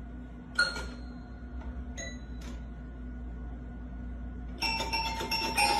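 Three short metallic clinks, each ringing briefly, over a low steady hum; music begins near the end.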